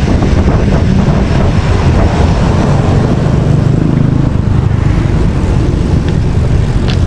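Steady, loud wind noise buffeting the microphone of a handlebar-mounted camera on a moving bicycle.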